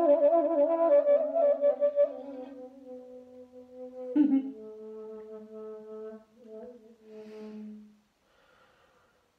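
Shakuhachi (end-blown bamboo flute) playing long held notes. The first note wavers in pitch for about two seconds. A breathy attack about four seconds in starts a lower sustained note, and the phrase ends with a breathy rush of air around eight seconds in.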